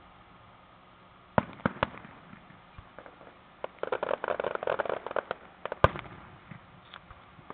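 Aerial fireworks shells bursting: three sharp bangs about a second and a half in, then a rapid run of pops for about a second and a half, and one loudest bang near the end.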